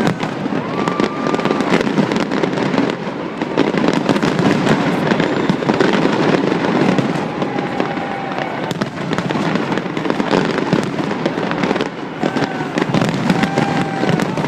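Fireworks display: a dense, continuous barrage of bangs and crackling from bursting shells, with a few short whistling tones among them.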